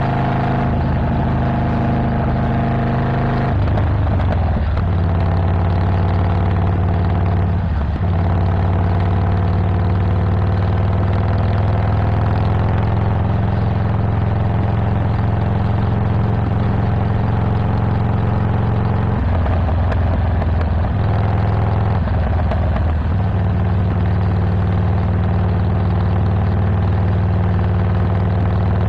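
Harley-Davidson Iron 1200 Sportster's air-cooled V-twin running with a Stage 1 setup: a Cobra El Diablo 2-into-1 exhaust, an Arlen Ness Big Sucker air intake and a Screaming Eagle Pro Tuner tune. The exhaust note is steady and changes pitch a few times.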